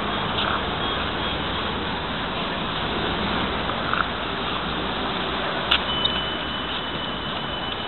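Steady outdoor street noise from a handheld camera being walked along: a rushing hiss with low rumble from traffic and wind on the microphone, broken by a few short clicks of handling.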